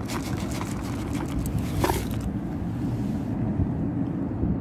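Dry dog kibble dropped onto paving stones: a run of light clicks and rattles over the first two seconds, over a steady low outdoor rumble.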